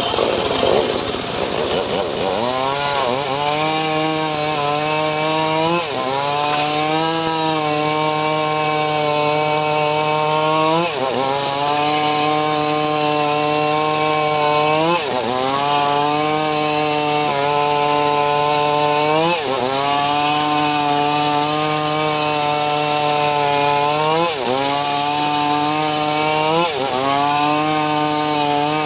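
Homemade engine-driven saw rig slicing mahogany: the engine runs steadily, and its pitch dips sharply and recovers about every three to five seconds as the saw takes the load of each cut.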